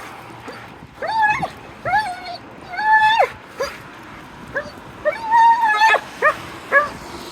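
A dog whining in a series of high, arching cries, some short yelps and some drawn out for up to about a second.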